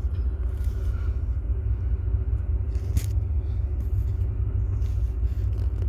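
Ford CL9000 cab-over truck's diesel engine idling, a steady low rumble heard from beneath the truck by the clutch housing, with a single click about three seconds in.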